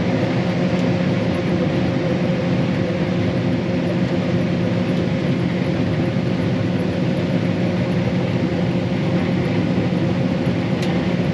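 Combine harvester running steadily, a constant engine drone with a steady hum that does not change in pitch or level.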